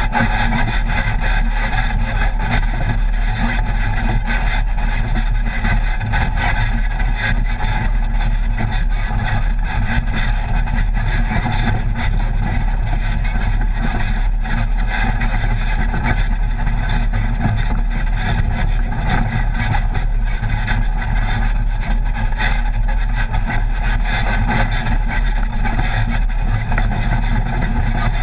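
Side-by-side UTV engine and drivetrain running steadily under way on a rough dirt trail, heard from inside the open cab. Constant jolts and rattles come through from the bumpy ground.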